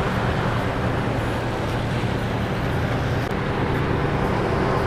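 A car ferry's engine running steadily under way, a constant low hum under the rushing of propeller-churned water.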